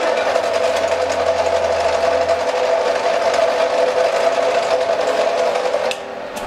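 Benchtop jaw crusher with ceramic jaws running, crushing a piece of graphite ore: a loud, steady motor hum over a dense grinding rattle. It cuts off suddenly near the end as the crusher is shut down.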